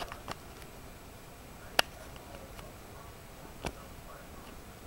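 A few sharp clicks or taps, the loudest a little under two seconds in, over a faint steady hiss.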